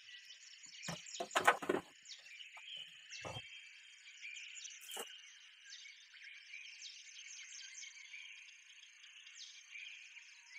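Steady high chorus of insects with many short chirping calls over it. A quick clatter of knocks comes about a second and a half in, with single knocks a couple of seconds and about five seconds in.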